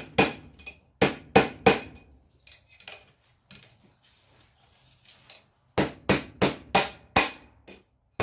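Hand hammer striking hot spring steel on an anvil to straighten it, in sharp ringing blows: three quick blows about a second in, a pause with a few light clinks, then about five blows in a row near the end.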